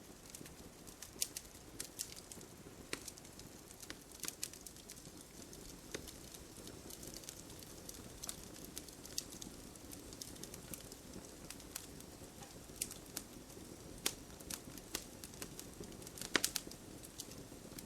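Campfire burning: irregular sharp crackles and pops of wood over a soft, steady rush of flame, with a quick cluster of pops near the end.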